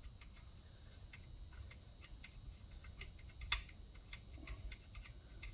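Faint scattered light clicks and taps from small parts or tools being handled, with one sharper click about three and a half seconds in.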